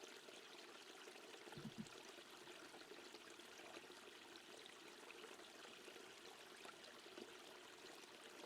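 Near silence with a faint, steady hiss of running water.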